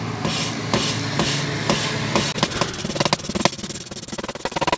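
A valve being lapped into its seat in a cylinder head with grinding paste, turned back and forth by a hand drill. The gritty rasp of valve on seat comes in rhythmic strokes about twice a second, then about halfway through turns into a faster, clicking rattle.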